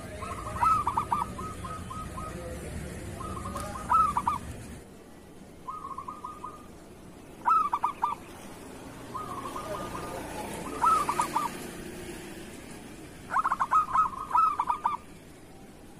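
Zebra dove (perkutut) cooing song: short trilled coo phrases, each closing in a few louder staccato notes, repeated about every one to two seconds.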